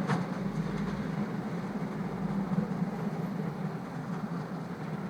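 Electric S-Bahn commuter train running, a steady low hum over continuous rolling rail noise, with a sharp click at the very start.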